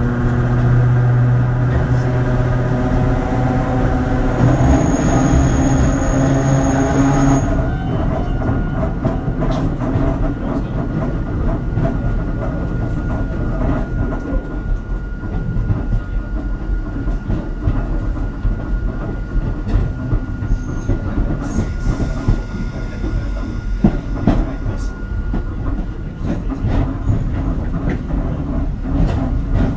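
Hakone Tozan Railway Moha 1 electric railcar No. 107 running: the whine of its nose-suspended traction motors and gearing, a stack of steady tones, stops suddenly about seven seconds in. What remains is the rumble of the wheels, with frequent clicks over the rails.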